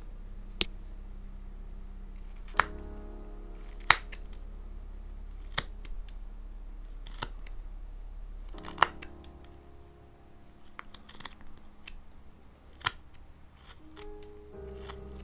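Japanese carving knife (kogatana) slicing chips off a block of paulownia (kiri) wood: a string of sharp, crisp cuts one to a few seconds apart. Soft background music plays under them.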